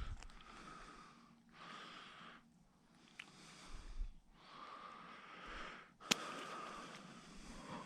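A person breathing close to the microphone: about five long, hissy breaths with short pauses between them, and one sharp click about six seconds in.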